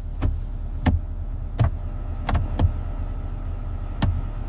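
Steady low car hum with about six sharp clicks at uneven intervals, and a faint steady high tone in the second half.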